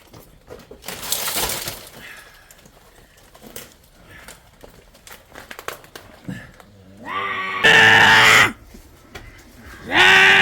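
Livestock bleating: two loud, long bleats near the end. A brief noisy rustle comes about a second in.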